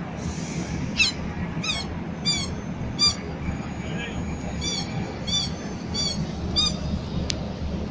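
A run of eight short, high-pitched squeaks in a steady rhythm, a little more than one a second, over the murmur of a street crowd.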